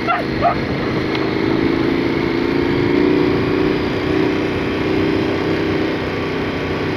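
Large V-twin adventure motorcycle running at a steady cruise on a gravel track, with tyre and wind noise over the engine.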